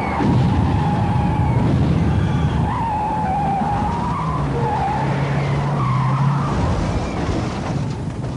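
Army truck engines running with tyres squealing in a wavering, up-and-down whine as the trucks drive past.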